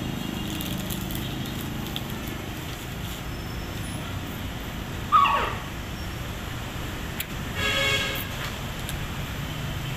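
Steady low rumble of passing street traffic. About five seconds in comes a sharp, brief falling squeal, the loudest sound here, and just before eight seconds a vehicle horn gives a short toot.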